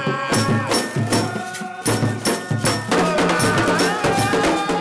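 Group of men singing together in Haitian Creole, loud and unaccompanied except for hand-held shakers and a wooden clapper struck to a steady beat.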